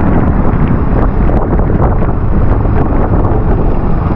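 Wind buffeting the microphone of a moving motorcycle, with the bike's engine running underneath, steady throughout.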